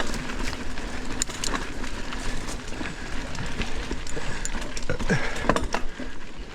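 Mountain bike ridden down a rough forest trail: tyres on dirt and a steady clatter of irregular knocks and rattles from the bike over roots and rocks.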